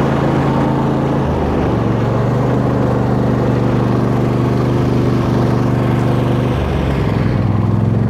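Tractor engine running while driving, a steady engine note that drops a step about a second and a half in and again near the end as it slows.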